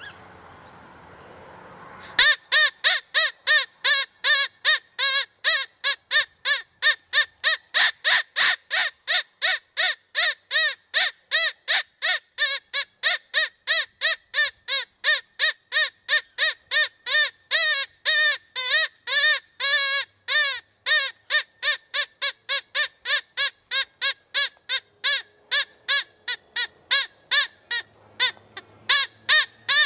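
Rabbit call played on an electronic caller: short, high-pitched calls repeated evenly at about three a second. They start abruptly about two seconds in.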